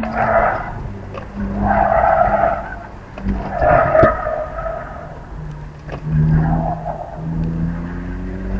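BMW E46 325xi Touring's straight-six engine running under load, heard from inside the car, with the tyres squealing in four bursts as the car is turned. The engine note drops about halfway through and climbs again near the end.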